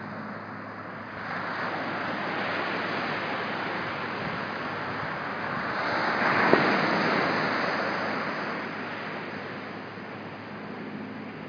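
Small knee-high surf breaking and washing up the beach, the rush of water building about a second in, peaking around the middle and fading away near the end.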